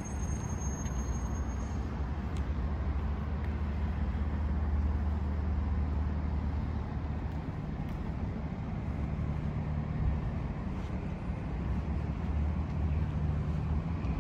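Alpine A110 1600S's four-cylinder engine idling with a steady low rumble.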